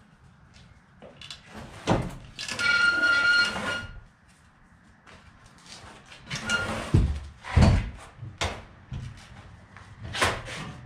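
Honda D16A engine-and-transmission assembly dragged across a concrete garage floor on a blanket: a long scraping screech about two seconds in, then heavy thumps and a few knocks as the assembly shifts.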